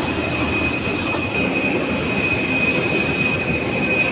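Steady rumble and hiss of a moving vehicle heard from inside, with a constant high-pitched whine above it.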